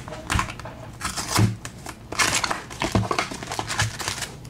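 Hands tearing open a sealed trading-card box: irregular crinkling and tearing of wrapping and cardboard, with a couple of light knocks.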